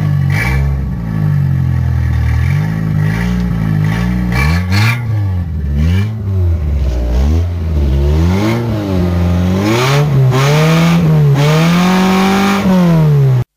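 Mitsubishi Galant GSLi engine being revved while stationary: repeated quick blips of the throttle, then held higher and climbing over the last few seconds before cutting off abruptly.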